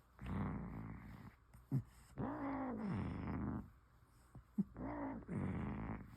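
A sleeping cat snoring: raspy breaths about every two seconds, the longest carrying a moaning tone that rises and then falls. Two brief sharp noises come between the breaths.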